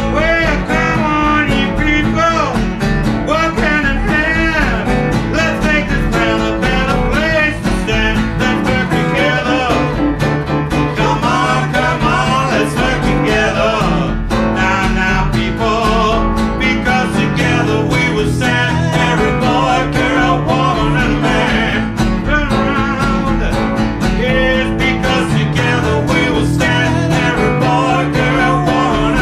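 A blues band playing live, with guitar to the fore and bending lead notes over a steady accompaniment.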